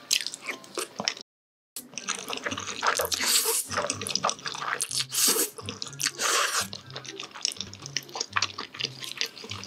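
Close-miked eating of jjajangmyeon (black bean noodles): wet smacking and chewing, with a few loud slurps of the noodles. The sound drops out completely for a moment about a second in.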